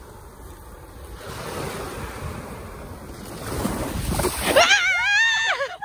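Surf and wind noise on the microphone, then, near the end, a loud, high-pitched, wavering cry in a woman's voice lasting about a second.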